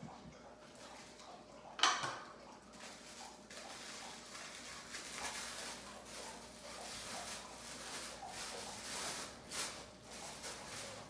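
Plastic packaging bags crinkling and rustling as small parts are unwrapped by hand, with one sharp, loud sound about two seconds in.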